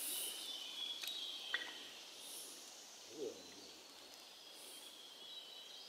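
Quiet ambience beside a forest pond, with faint high-pitched calls of birds or insects, a few small clicks in the first two seconds and one brief low sound about three seconds in.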